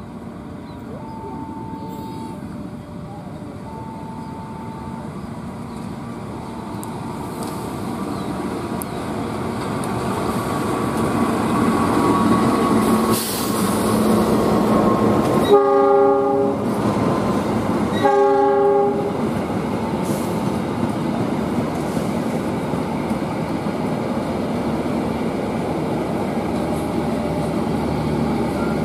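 A passenger train hauled by a diesel locomotive approaches and passes, its rolling and engine noise growing louder, with two horn blasts from the locomotive about halfway through, the first a little longer than the second. The coaches then roll past steadily. In the first seconds a short beeping tone repeats several times.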